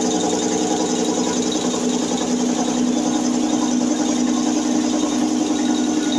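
Schulz MSV-20/350 Super Advanced piston air compressor running, its electric motor driving the two-cylinder V pump with a steady, even hum.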